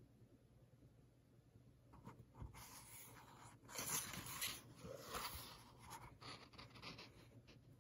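Faint rustling and swishing of paper as a page of a picture book is turned by hand, a series of soft brushes from about two seconds in, strongest around four seconds, fading out near the end.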